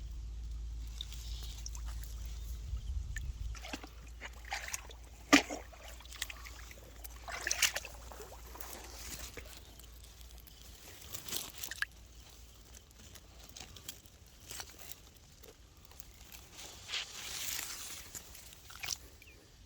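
Water sloshing and splashing in irregular bursts, with a low rumble during the first few seconds.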